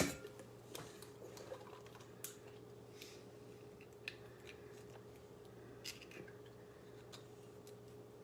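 An egg cracked sharply on a bowl's rim at the start, then faint scattered clicks and ticks of eggshell being handled as the yolk is separated from the white, over a steady low hum.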